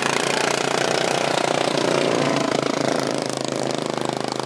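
Several racing lawn mower engines running hard as the mowers lap a dirt track, a dense, steady buzz of overlapping engines that eases a little near the end.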